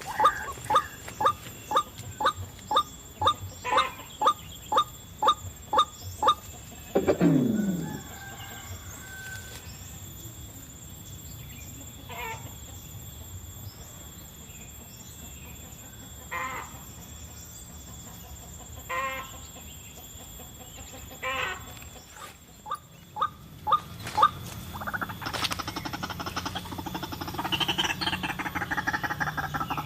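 White-breasted waterhen (ruak-ruak) calling: a fast run of repeated clucking notes, about two a second, then a falling glide and scattered single calls a few seconds apart, with another quick cluster later. A rough rustling noise fills the last few seconds.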